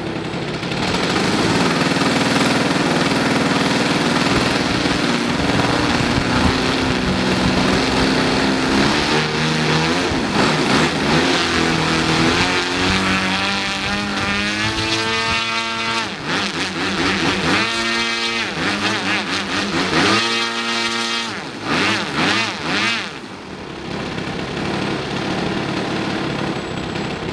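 O.S. 33 cc gasoline engine of a large model aerobatic plane, fitted with a canister muffler, running on a ground run-up stand. It runs steadily for the first half, then is revved hard several times around the middle with a few quick throttle blips, and drops back to idle near the end.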